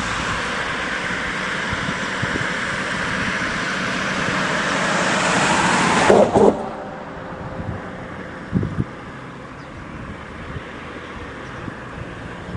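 Road traffic passing close by: the tyre and engine noise of cars swells for the first six seconds, then falls away to a quieter, steady background hiss. There is a brief louder burst right as it drops off.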